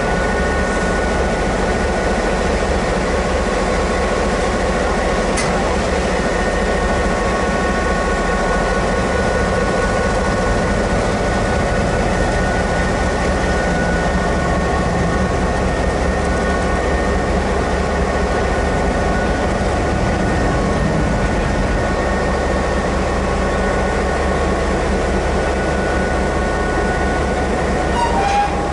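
EMD G12 diesel locomotive with its V12 two-stroke engine running steadily at idle while the turntable swings it round, with a steady whine over the engine. A short squeal near the end.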